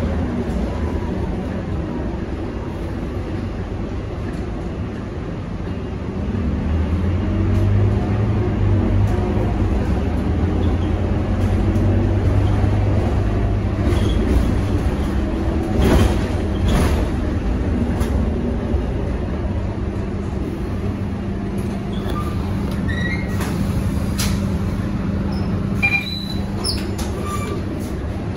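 Interior sound of a Scania K230UB single-deck city bus under way: the rear-mounted five-cylinder diesel and drivetrain make a steady low drone that grows louder while the bus accelerates, from about a quarter of the way in until about halfway. There is a sharp knock about halfway through, and a few faint high squeaks near the end as the bus slows and pulls up at a stop.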